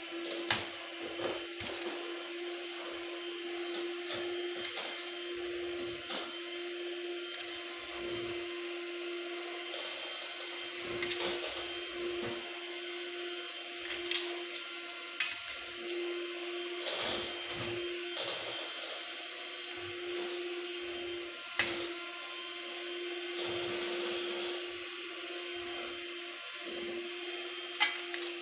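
A metal spoon scooping cooked rice from a large tray into a stainless-steel hotel pan, with soft scraping and a few sharp clinks of spoon on steel. Underneath is a steady machine hum with one constant tone.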